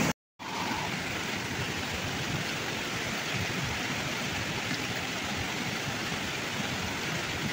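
Fast-flowing rocky stream rushing over stones, a steady hiss of white water. It drops out for a moment just after the start, then carries on a little quieter.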